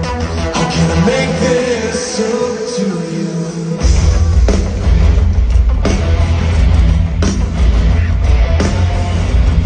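Live rock music played loud over a stadium sound system, with a held sung note. The bass drops out, then the full band with heavy drums crashes back in about four seconds in.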